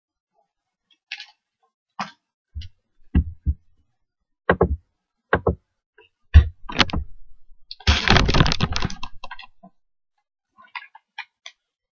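Handling noise as a resin ball-jointed doll is unwrapped: a run of clicks and knocks, several with a dull thump, then about eight seconds in a burst of rustling packaging lasting a second or so, and a few faint clicks near the end.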